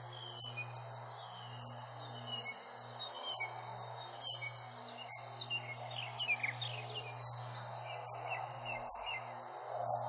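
Insects chirping in a steady, high-pitched rhythm, a little more than once a second, with birds singing short gliding phrases in between.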